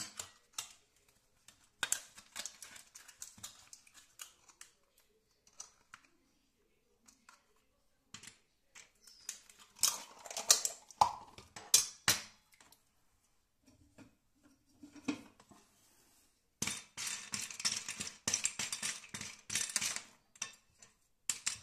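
Kitchen handling sounds: scattered clicks and knocks, louder around the middle, then a utensil stirring rigatoni in a ceramic bowl, a dense run of quick scraping clicks for the last few seconds.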